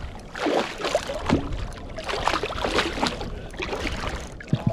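Water splashing and sloshing around a fishing kayak, in uneven bursts about once a second.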